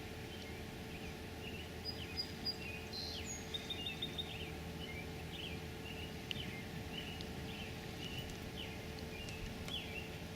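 Birds chirping and calling, with many short high chirps and trills scattered throughout, over a steady low outdoor background noise.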